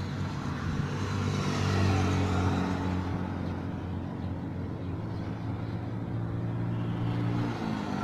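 Heavy lorry's diesel engine running with a steady low drone. It grows louder about two seconds in, then settles.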